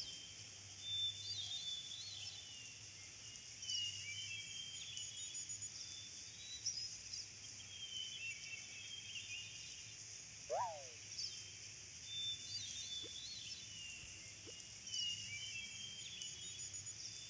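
Faint outdoor ambience of small birds chirping and twittering in short high notes, with one louder falling call about ten seconds in.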